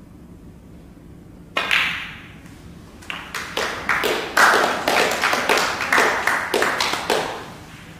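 A sharp clack of snooker balls about a second and a half in as the final black is potted, followed by a few people applauding for several seconds.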